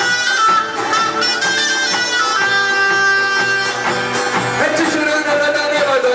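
Traditional pastellessa folk music: a bagpipe plays a stepping melody over a steady drone, with the bottari beating barrels beneath it. A man's singing voice comes in about two thirds of the way through.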